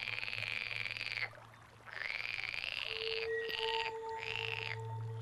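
Common cuckoo chick begging: a run of rasping, rapidly pulsed calls, each up to about a second long, with short gaps between. A soft held music tone comes in about three seconds in.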